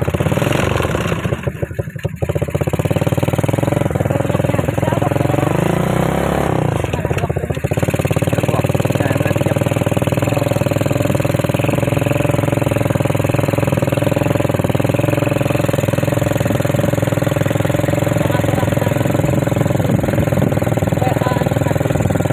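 A small ATV engine running under way. Its pitch rises and falls for a few seconds early on as the throttle changes, then holds a steady drone.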